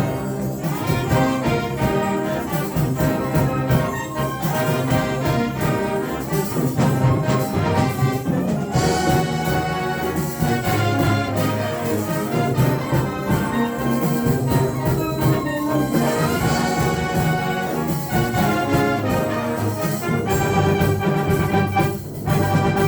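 University symphonic band playing a full, loud passage, with trombones and trumpets to the fore. There is a brief drop in level near the end.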